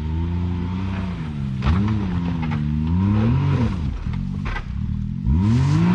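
Can-Am Maverick X3 side-by-side's turbocharged three-cylinder engine revving up and falling back three times, about two, three and a half and five and a half seconds in, as it works to climb a rock ledge, with a few short knocks in between.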